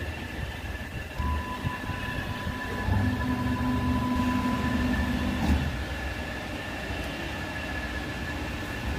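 CNC router's axis drive motors whining as the gantry runs to its origin position. The whine starts about a second in, a lower hum joins about three seconds in, and both stop about five and a half seconds in as the machine comes to rest, with a faint steady high tone underneath.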